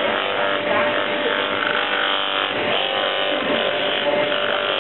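Bench motor spinning a sanding wheel, running with a steady hum, while a briar pipe is held against the wheel for sanding.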